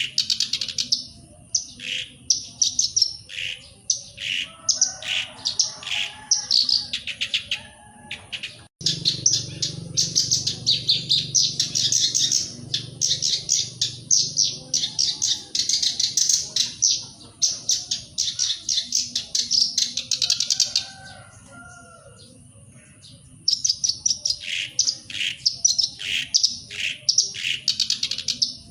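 Black-browed reed warbler singing: fast, chattering phrases of quickly repeated high notes. The song breaks off abruptly about nine seconds in and resumes at once. There is a pause of about two seconds about three-quarters of the way through.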